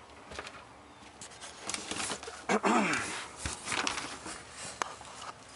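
Scattered light clicks and knocks of handling as the area behind the refrigerator is looked over, with a short sound falling in pitch about two and a half seconds in.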